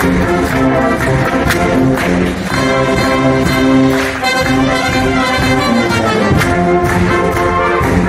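A large brass-led wind band playing a march: brass carry the tune in sustained chords over regular drum strokes.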